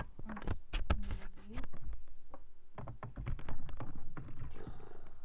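Handling noise from a camera being picked up and carried against clothing: a run of irregular knocks, bumps and rustles right on the microphone.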